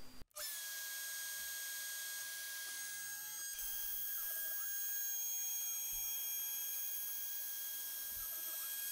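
Router spindle on a Shapeoko 3XL CNC machine running at speed, a steady high whine. Fainter tones briefly sweep down and up around the middle and near the end, typical of the stepper motors moving the gantry.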